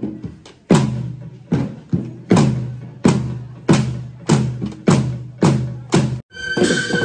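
Drum beats in a steady rhythm, about one and a half deep, ringing hits a second, accompanying a bamboo-pole dance. Near the end the beat stops and different music with held tones comes in.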